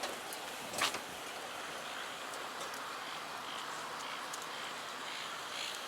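Steady outdoor background hiss with a single short knock about a second in, and faint high chirps later on.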